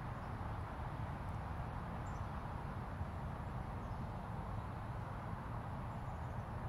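Steady, distant urban traffic rumble carried through a park's trees, with a few faint, brief bird chirps above it.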